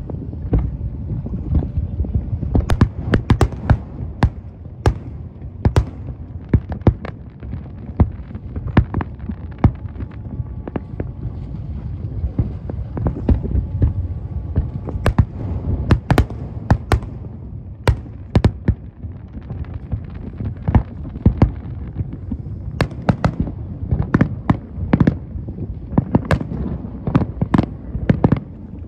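Fireworks display: a dense, irregular run of sharp bangs and crackles over a continuous low rumble, with a thicker flurry of bangs near the end.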